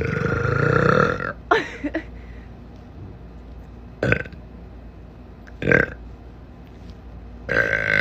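Deep human burps: one long burp lasting over a second at the start, then several shorter burps spaced through the rest, some dropping in pitch.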